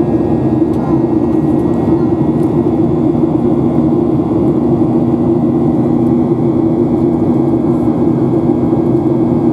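Boeing 737-800's CFM56-7 turbofan engines running steadily at climb power, heard inside the cabin as a loud, even roar with a steady low hum and a faint high tone.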